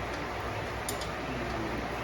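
Chevrolet 283 small-block V8 with throttle-body injection idling, with a light ticking over a steady low hum and a sharp click about a second in; the owner calls it "a little bit of noise in this motor".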